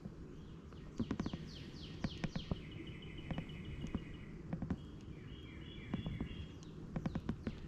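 Birds calling in the background, with series of quick falling whistled notes and short high trills. Scattered small clicks and knocks are heard throughout.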